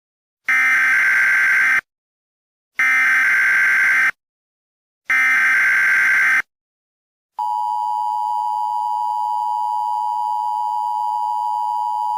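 Emergency Alert System broadcast signal: three identical buzzy digital header bursts, each a little over a second long with a second's gap between them. Then, about seven seconds in, the steady two-tone EAS attention signal begins and holds.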